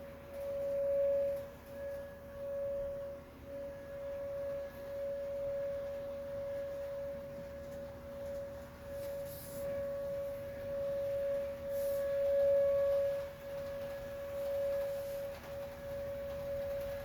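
Outdoor tornado warning siren sounding a steady tone, its pitch holding level while the loudness swells and fades every second or two.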